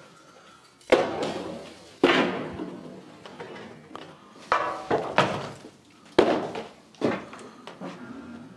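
Old wooden planks dropped one after another onto a pile of plank debris, each landing with a sharp wooden thud and a short clatter, several times over.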